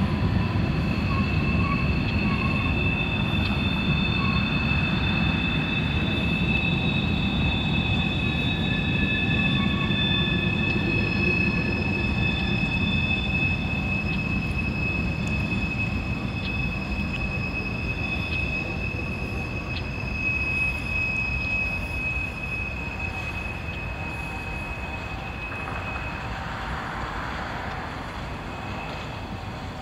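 Freight train's steel wheels squealing as the cars roll through a curve: several long, steady high-pitched squeals over the low rumble of the train. The squealing dies away near the end and the rumble grows fainter as the train moves off.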